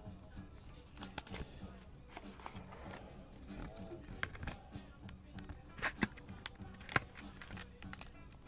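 Faint clicks and small scrapes of a trading card and a clear plastic card holder being handled, with a few sharper ticks about a second in and again near six and seven seconds.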